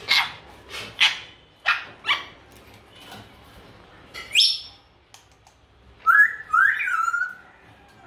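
African grey parrot calling: four short, sharp calls in the first two seconds, a single rising call about four seconds in, then two whistled notes near the end.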